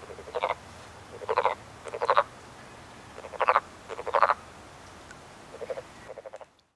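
Male wood frogs giving their breeding calls: about seven short croaks, each a quick rattle of pulses, several coming in close pairs. The sound fades out near the end.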